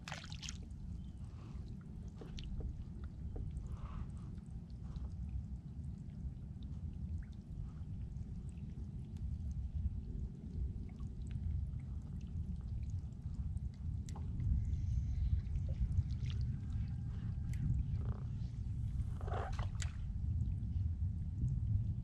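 Water lapping and gurgling against the hull of a small skiff, a steady low rumble, with a few faint taps and clicks scattered through it.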